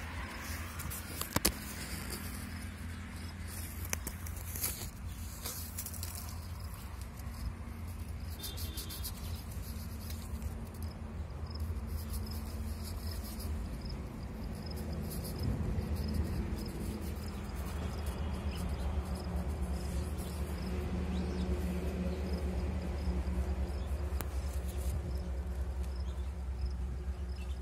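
Faint high chirping repeated at an even pace over a steady low hum. A few sharp clicks and short rustles in the first several seconds come from hands working a small knife on a leafy mango twig.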